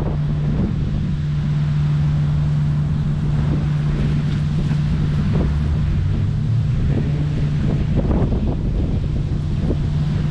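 Wind buffeting the microphone over a steady low hum of road traffic, with a few soft scuffs scattered through.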